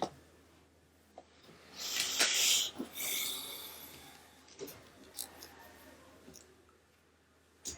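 Handling noises from the plastic shell and parts of a PS4 DualShock 4 controller being taken apart: a few light clicks and a brief hissing scrape about two seconds in that fades over a second or so.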